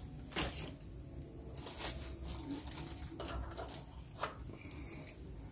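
Quiet, scattered clicks and rustles of handling. Near the end a single sharper click comes as a plug is pushed into a wall socket.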